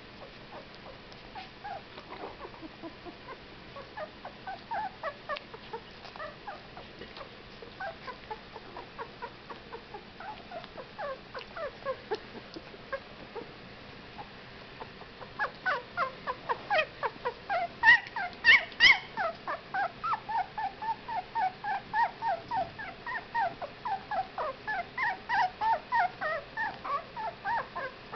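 Two-week-old whippet puppies whimpering and squeaking in short, high calls, several a second. The calls grow louder and busier about halfway through.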